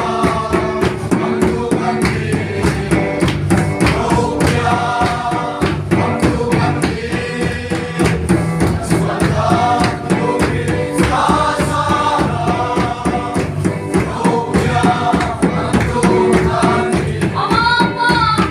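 Church congregation singing a hymn together in unison over a steady percussion beat.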